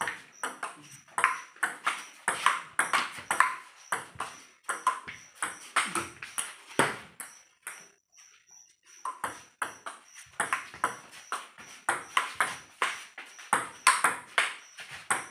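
Table tennis ball clicking sharply off the paddles and the table in quick rallies, a few hits a second, with a pause in play about halfway through before the hitting starts again.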